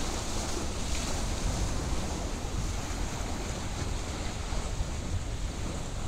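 Sea waves washing steadily, mixed with wind buffeting the microphone as a low rumble.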